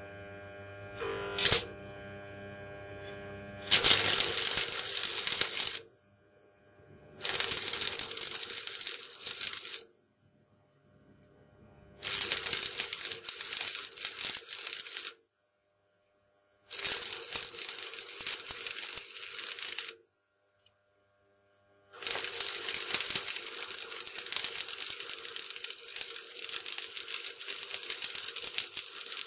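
Stick (arc) welder running a 1.6 mm rod on 0.8 mm thin-gauge sheet steel. After a couple of sharp clicks, the arc crackles and sizzles in five separate runs of two to seven seconds, broken off and struck again between each one, so the weld is laid in short stitches.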